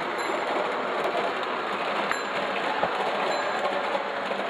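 Lionel Western Maryland O-gauge toy train set running at speed on three-rail tubular track: a steady rattling run of wheels and cars over the rails, broken by a few sharp clicks.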